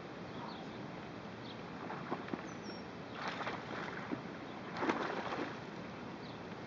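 Water splashing at the pond surface in two bursts, about three seconds in and louder about five seconds in, as a bass strikes and thrashes at a buzzbait. Faint bird chirps in the background.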